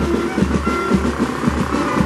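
Loud music with a steady bass beat, about two beats a second.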